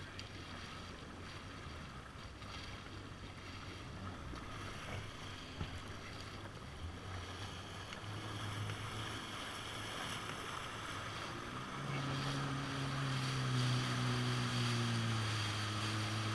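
Jet ski engine running under way over water splashing and wind noise on the microphone; about twelve seconds in the engine note climbs and gets louder as it throttles up.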